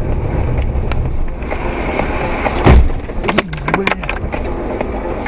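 Steady road and engine noise inside a moving car, with one loud thump a little past the middle, followed by a quick run of sharp knocks and a short wavering tone.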